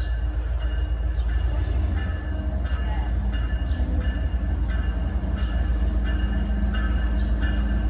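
CSX 3028, a GE ES44AH diesel locomotive, approaching at low speed with a steady heavy engine rumble, its bell ringing about every two-thirds of a second.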